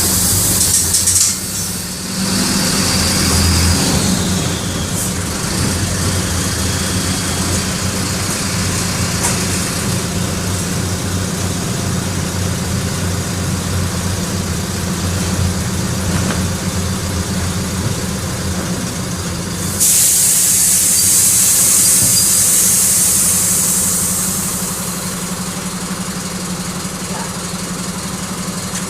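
Mercedes-Benz OM-904LA four-cylinder inline turbodiesel of a Mercedes-Benz LO-915 minibus running steadily, heard from inside the bus. A hiss of air sounds over it near the start and again about twenty seconds in.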